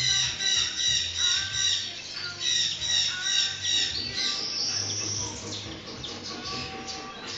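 Parrots squawking: a rapid run of harsh, high calls, about three a second, with one longer call near the middle before the calls turn fainter.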